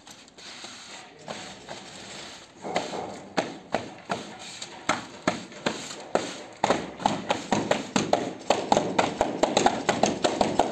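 Tiling float knocking against sheets of mosaic pool tile, bedding them into fresh adhesive. It makes a run of sharp taps, about two a second from roughly three seconds in, then quicker and louder for the last few seconds.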